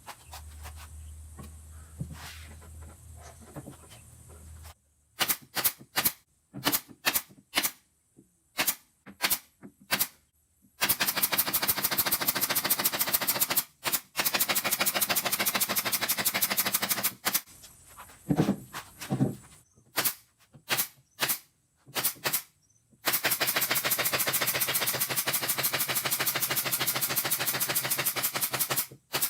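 Power tool driving fasteners during cabinet assembly: several short bursts of rapid hammering, then two long runs of fast, even rattling impacts lasting about six seconds each. A low hum comes first, before the tool starts.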